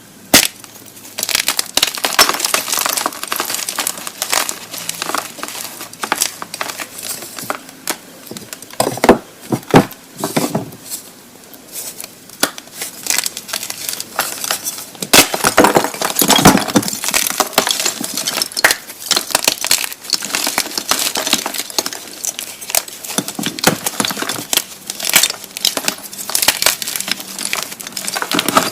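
Blocks of gymnastic chalk being crushed, with dense, irregular crunching and crackling as they crumble. Louder snaps come in bunches around a third of the way in and again near the middle.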